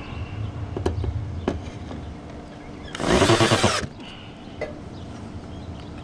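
Cordless drill driving a screw into the aluminium patch in the gutter: one short run of a bit under a second, about three seconds in. A few light knocks and clicks come before it.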